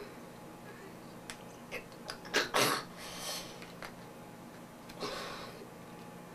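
Quiet handling of a toothpaste tube and toothbrush: a few light clicks, then a couple of short soft hisses and rustles.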